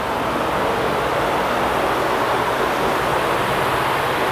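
Steady rushing hiss of moving air from large wall-mounted shop fans.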